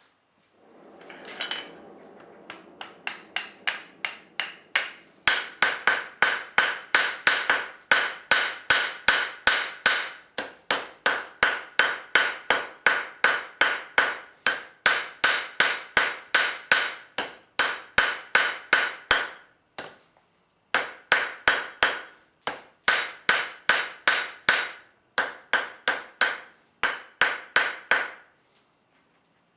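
Blacksmith's hammer striking hot steel on an anvil in rapid, steady blows, about three a second, with a high ring from the anvil hanging over them. The blows break off briefly about twenty seconds in and stop shortly before the end.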